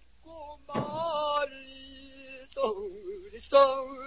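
Male pansori singer performing a danga (short pansori song) in a strained voice, holding long vowels and then shaking a note with a wide vibrato about three seconds in.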